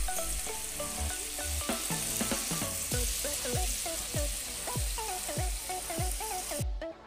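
Diced pork sizzling as it fries in hot fat in an iron wok, a dense hiss that cuts off sharply about six and a half seconds in. Background music with melodic notes and a steady beat plays over it.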